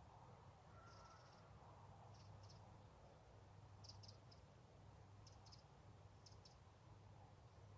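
Near silence outdoors, with faint, short, high-pitched chirps in quick twos and threes every second or so.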